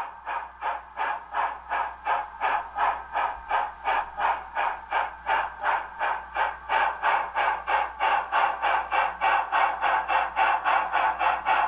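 Steam locomotive exhaust chuffing in a steady rhythm of about three beats a second, slowly growing louder: the working sound of a B&O EM-1 2-8-8-4 articulated steam locomotive.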